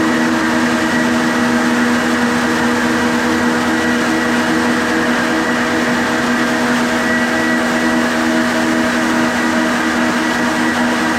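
Hyper Grinder planetary floor sander running steadily as it grinds a pine floor: a constant motor hum with a thin high whine over the rasp of the abrasives on the wood.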